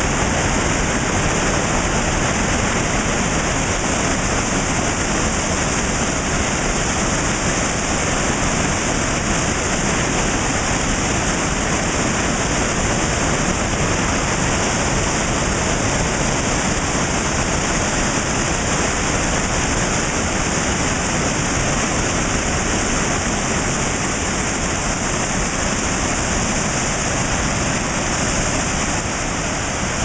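Small waterfall cascading over rocks into rapids: a steady rush of falling and churning water.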